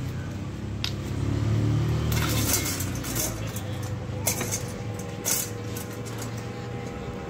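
A vehicle passing on the road with a low engine rumble that swells about two seconds in. Several sharp metallic clinks come from the pans and weights of a hand-held beam balance as bitter gourds are weighed.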